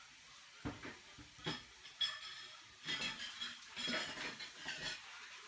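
Two Maltese dogs eating from ceramic bowls in raised wooden stands: the bowls clink and scrape as the dogs eat. A few separate sharp clinks in the first two seconds, then a busier clatter.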